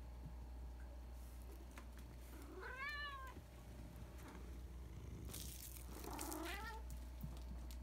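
Domestic cat meowing twice, a few seconds apart, each call rising and then falling in pitch. There is a brief rustle just before the second meow.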